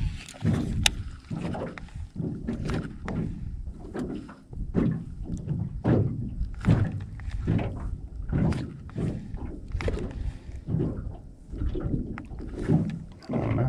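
Small waves slapping irregularly against the hull of a small fishing boat on choppy water, with a sharp click about a second in.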